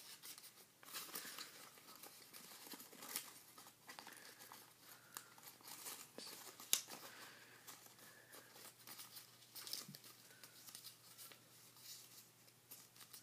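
Paper being folded and creased by hand: faint rustling and crinkling with scattered sharp crackles, the loudest a little under seven seconds in.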